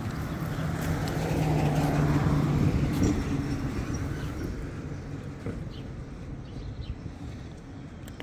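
A car passing on the street, its engine hum and tyre noise building to a peak about two to three seconds in, then fading away.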